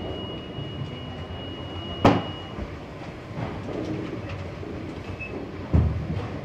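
Steady rumbling clatter of warehouse machinery, with a steady high whine that stops about two and a half seconds in. A sharp knock comes about two seconds in, and a heavy thud near the end as boxed goods are set down on the packing table.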